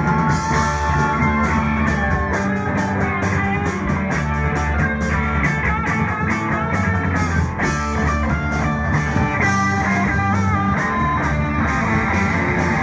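Live rock band in an instrumental break: a Stratocaster-style electric guitar plays a lead line with bent notes over the band and drums.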